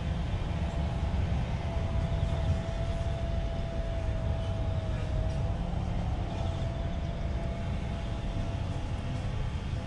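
A cat purring steadily close up as it is stroked: a continuous low rumble.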